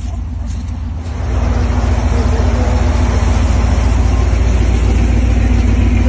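Engine of a tube-frame rock-crawler buggy running loud and steady. It cuts in about a second in, after a quieter vehicle hum.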